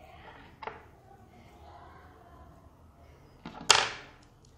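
Quiet room tone with a small tick under a second in and a loud sharp click about three and a half seconds in, just after a fainter one, that fades quickly.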